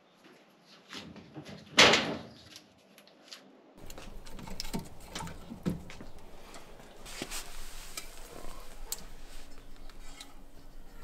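Split firewood logs being stacked by hand, wood knocking on wood, with one sharp knock about two seconds in. After a cut, more light wooden clacks and clicks over a low steady background.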